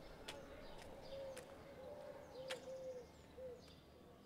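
Faint dove cooing, a run of short, low, rounded notes, with a few sharp ticks and thin high chirps of small birds over it.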